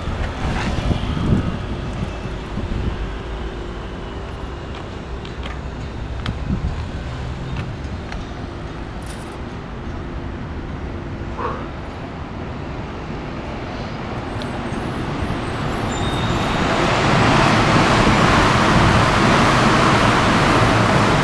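Road traffic noise: a steady low rumble with a few faint clicks. Over the last few seconds a loud rushing noise swells up and stays.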